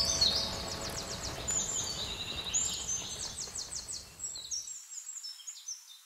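Small birds chirping, with many short, high-pitched calls and quick trills overlapping, over a low background hiss that cuts out about two-thirds of the way through. The calls fade away near the end.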